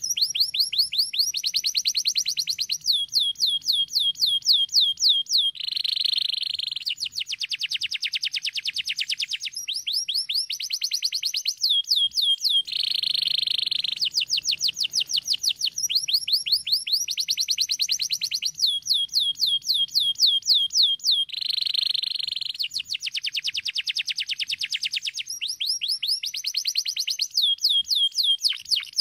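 Domestic canary singing a long, unbroken song: phrase after phrase of rapid repeated trill notes. Three short buzzy rolls come about six, thirteen and twenty-two seconds in.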